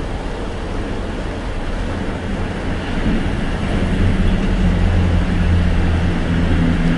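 A machine running with a steady low rumble and hum, getting louder about three seconds in.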